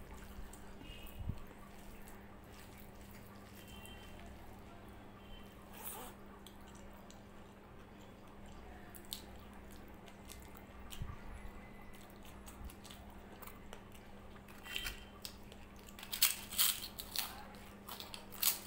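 Close-miked eating with the hand: soft wet squishing and chewing of rice and dal, with a run of loud crunchy bites near the end. A faint steady hum runs underneath.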